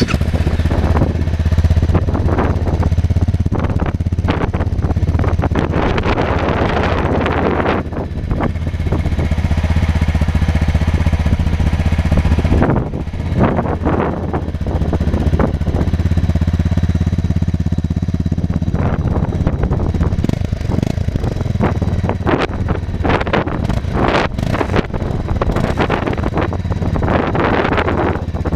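2016 Honda CRF250L's single-cylinder four-stroke engine idling steadily and being revved again and again, with throttle blips through much of the first eight seconds and again through the last nine.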